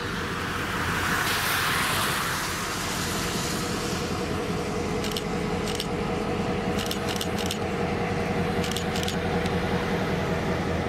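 A Norfolk Southern diesel locomotive's engine runs steadily with a low hum as it hauls a caboose past. Several short, sharp clicks come in small groups around the middle.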